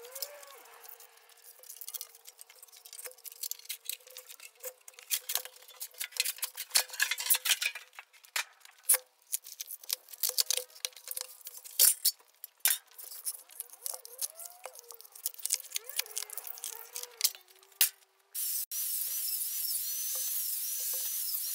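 Thin sheet-metal casing and foam insulation being pulled and torn off a water heater tank by gloved hands: irregular sharp crackles, clinks and scrapes. About eighteen seconds in, a steady high hiss suddenly takes over.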